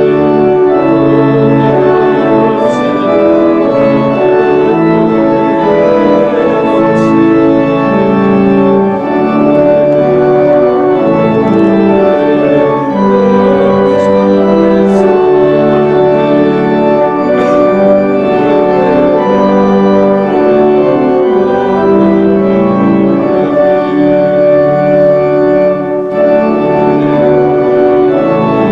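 Church organ playing slow, sustained chords that change about once a second.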